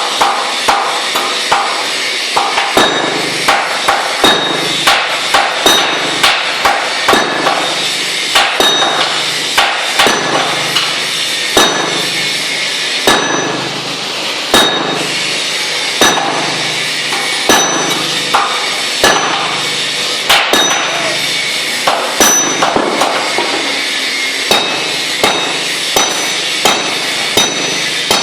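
Hammer striking metal repeatedly in an uneven rhythm, roughly one to two blows a second, many of them with a short metallic ring.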